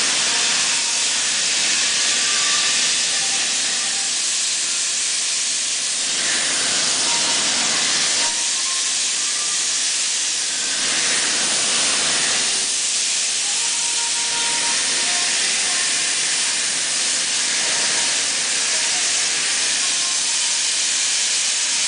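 Plasma torch of a CNC cutting table cutting thin sheet metal: the arc makes a loud, steady hiss, its tone shifting slightly a few times as the torch travels.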